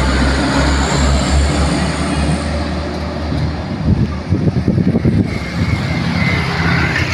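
A truck's diesel engine running as it passes close by. About four seconds in, motorcycles go by with an uneven, sputtering engine sound, followed by the steady drone of more trucks approaching.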